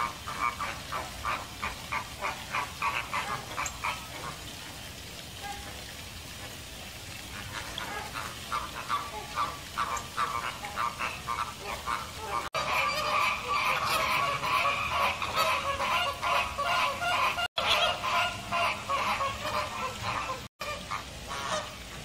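A flock of American flamingos honking: quick repeated calls, several a second, that die away briefly around five seconds in, then pick up again and build into a dense, overlapping chorus from about twelve seconds on.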